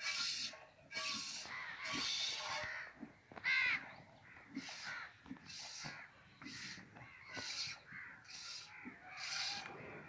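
Nili-Ravi buffalo being milked by hand: jets of milk hiss into a pail in a steady rhythm, about three squirts every two seconds.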